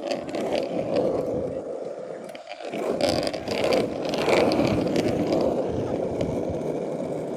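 Longboard and bicycle wheels rolling over a rough road, a steady rumbling scrape with a short dip about two and a half seconds in.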